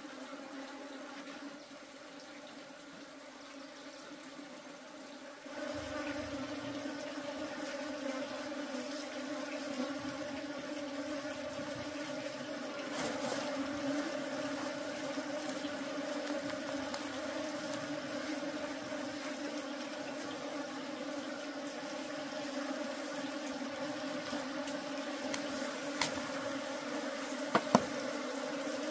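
Honeybees buzzing steadily en masse, a continuous hum that gets louder about five seconds in. A couple of sharp clicks near the end.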